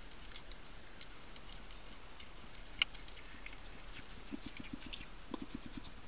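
Hedgehog moving about on the floor of a plastic feeding box: faint scratchy clicks, one sharp click near the middle, and two quick runs of low taps in the second half.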